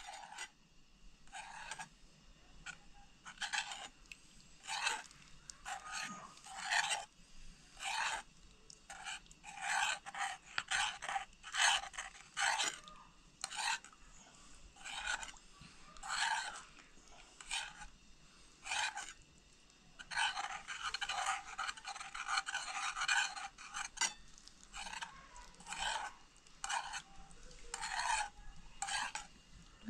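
Repeated short scraping or rubbing strokes, about one or two a second, with a denser run of continuous scraping about two-thirds of the way through.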